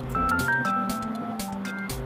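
Background music: a light, stepping melody over a steady beat.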